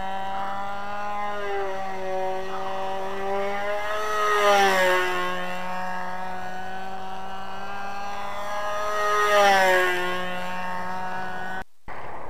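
Evolution .36 two-stroke glow engine of a control-line biplane, swinging an 11x4 propeller, running steadily on nitro fuel as the plane circles. Twice the note grows louder and its pitch rises then falls as the plane sweeps past close by on each lap. The sound drops out for a moment near the end.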